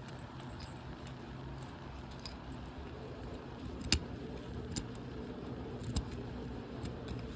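Small clicks and rattles of a car key fob and its metal key being handled during a battery change, with two sharper clicks about four and six seconds in, over a steady low hum.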